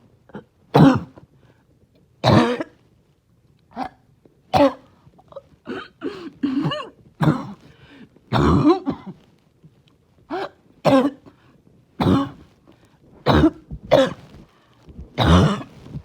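A person's harsh, barking cough, coming in repeated short hacks and throat-clearing bursts about once a second, some in quick pairs, as they struggle to clear the throat.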